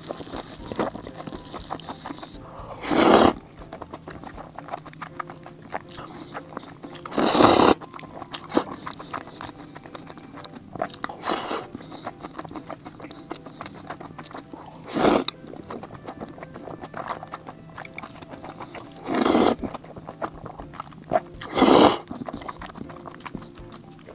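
Crunchy bites into fried food with chewing in between: five loud crunches spaced a few seconds apart over a bed of small, quieter chewing crackles.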